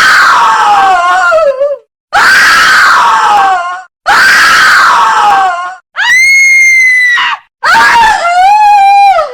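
A woman's terrified screams, five in a row, each lasting a second or two with short silences between them. The first three slide down in pitch, the fourth is a high, steady shriek, and the last one wavers.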